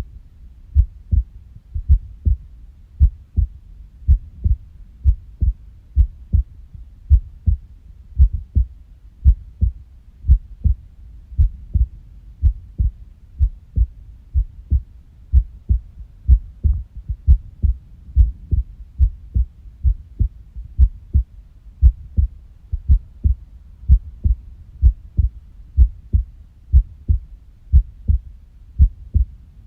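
Human heartbeat: low thumps, about two a second, unevenly spaced and varying in strength, which the uploader presents as an unusual, irregular heartbeat (arrhythmia).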